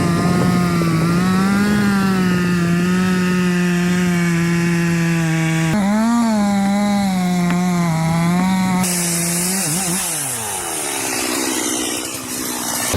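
Chainsaw running at high revs, its pitch wavering up and down as it works under load; the engine note falls away about ten seconds in.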